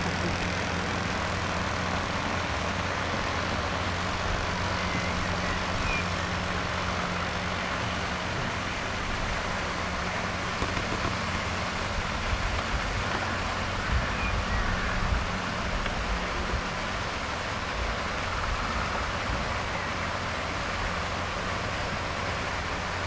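Steady low motor hum over an even outdoor hiss; the hum fades out about ten seconds in.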